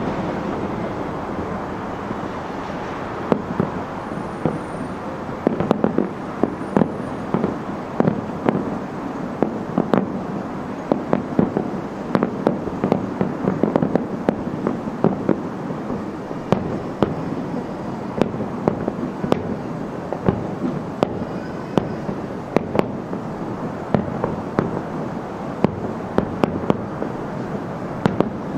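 Aerial fireworks shells bursting in a dense barrage, heard from about 2.5 km away: many sharp bangs and crackles in quick succession over a continuous rolling noise.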